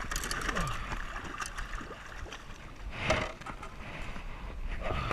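Water splashing and sloshing as a hooked bass is brought alongside the boat and landed, with scattered knocks and a second splashy surge about three seconds in.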